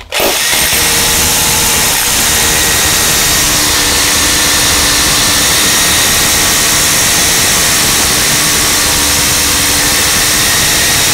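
Corded power drill boring a hole into a wall, running loud and steady without a break.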